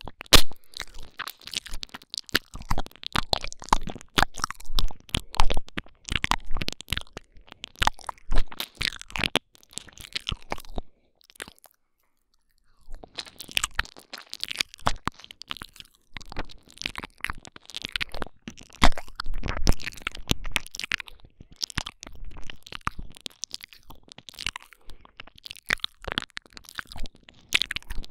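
Wet ASMR 'ear eating' mouth sounds made right at a binaural microphone: rapid smacking and clicking of lips and tongue. There is a pause of about two seconds just before the middle.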